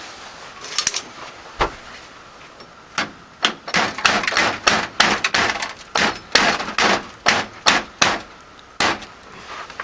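A hammer striking repeatedly: a few scattered taps at first, then a quick, irregular run of sharp blows from about three seconds in until near the end.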